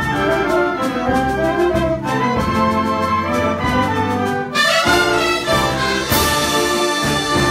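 Wind band playing, brass to the fore, over a steady beat of short percussion strokes. The music changes about four and a half seconds in, and a cymbal crash rings out about six seconds in.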